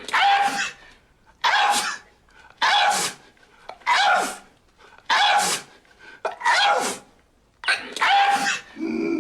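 A man sneezing over and over, about seven loud sneezes roughly a second apart: a sneezing fit set off by pepper.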